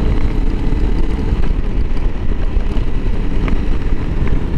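Honda CRF300L Rally's single-cylinder four-stroke engine running steadily while the motorcycle is ridden along at a constant pace.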